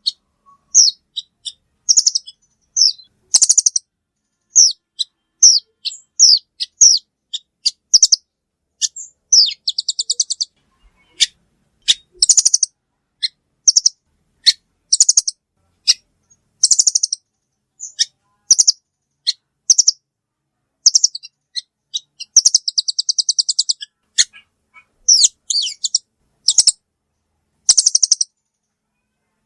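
Velvet-fronted nuthatch (rambatan) calls used as a bird-trapping lure: sharp, high, down-slurred chips repeated about once or twice a second, broken by a few rapid trills.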